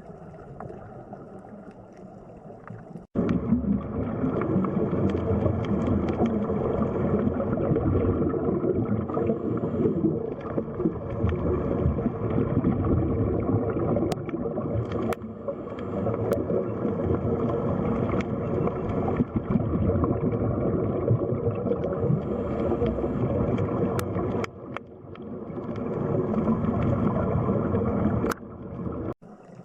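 Steady rushing, gurgling water noise. It is quiet at first and cuts in abruptly, much louder, about three seconds in, with brief sudden drops near the end.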